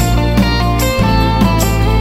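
Instrumental band playing: electric guitars over bass guitar, a drum kit and hand percussion, with a guitar line of held, changing notes on top.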